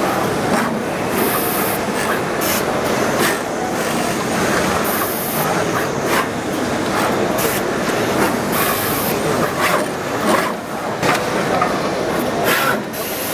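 Injection moulding machine and its servo take-out robot running in a noisy exhibition hall: a steady machine-and-crowd din with frequent sharp clacks, and short hisses of air every few seconds.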